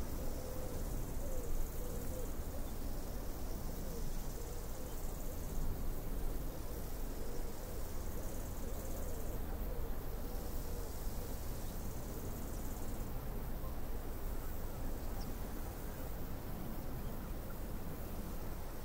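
Steady beach ambience: an even, unbroken rumble and hiss of breaking surf.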